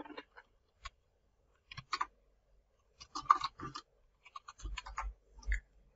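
Typing on a computer keyboard: scattered key clicks at first, then quick runs of clicks, with a few low thuds in the second half.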